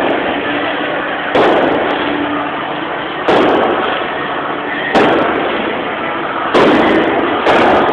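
Steady din of a large stadium crowd, broken by five loud bangs, roughly one every one and a half to two seconds, each echoing away in the stadium.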